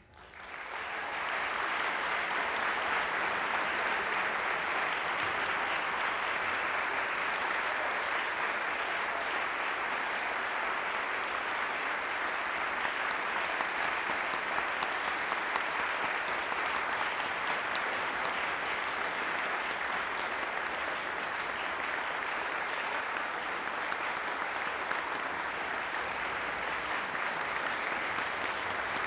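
Concert audience applauding an orchestra after the final note of a piece. The applause swells within the first second or so and then holds steady.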